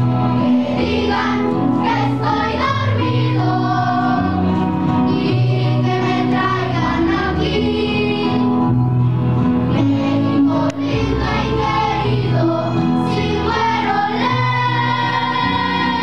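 A group of children singing a song together as a choir, over an accompaniment with a steady bass line.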